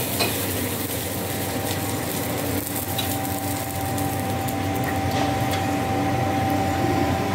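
Steady mechanical noise and low hum of a foundry cupola furnace running on its air blast while molten iron is tapped into a ladle. A thin steady whine comes in about three seconds in, with a few faint metal clinks.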